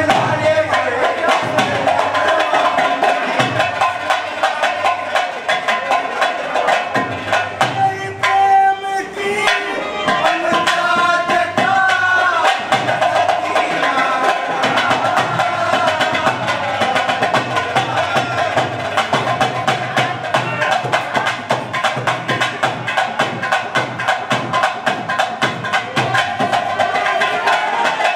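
Live Haryanvi folk music: a harmonium holding its melody over a fast, steady hand-drum rhythm. The drumming drops out for a moment about eight seconds in while a held note sounds, then comes back.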